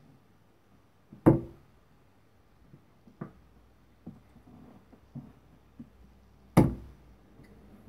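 Two Target XQ Max steel-tip darts thudding into a Winmau bristle dartboard, one about a second in and the next about five seconds later, each a single sharp hit.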